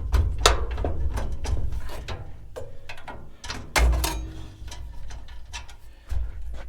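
Metal clanks, knocks and rattles of gas grill parts being handled and worked on with hand tools during dismantling, irregular, with louder clanks near the start and about four seconds in, one ringing briefly.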